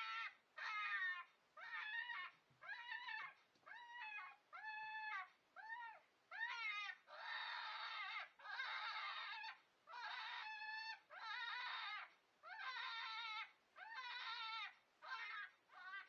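FoxPro electronic predator caller playing its "Lightning Jack" jackrabbit distress sound, a coyote lure: a faint, unbroken string of pitched, wavering squeals, about one a second, some held a little longer.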